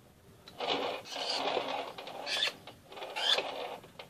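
Metal offset spatula scraping and smoothing cream across a cake layer inside a metal cake ring, in several strokes.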